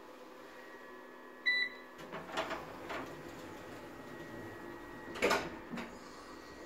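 Schindler Smart lift's sliding car doors closing: a short electronic beep about a second and a half in, a mechanical swish as the doors run, and a knock about five seconds in as they meet and shut.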